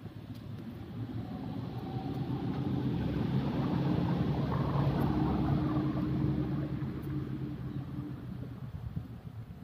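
A motor vehicle passing on the road: its engine hum grows louder to a peak about halfway through and then fades away.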